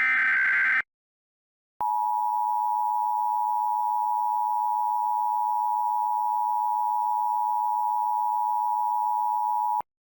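Emergency Alert System tones. A short burst of the SAME header's digital data screech ends under a second in. After a pause, the EAS two-tone attention signal sounds steadily for about eight seconds and cuts off abruptly.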